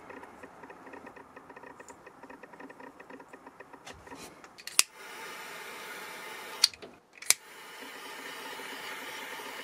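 A butane torch lighter clicks on about five seconds in and burns with a steady hissing jet flame, shrinking heat-shrink tubing over a wire splice. Near seven seconds it cuts out and is clicked alight twice more, then hisses steadily again. A faint fast ticking comes before it.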